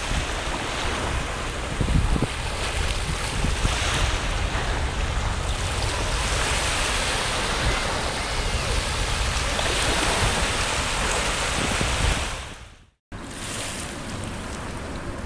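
Wind buffeting the microphone over small waves washing onto a sandy shore. The sound cuts out briefly near the end, then wind and water noise resume a little quieter.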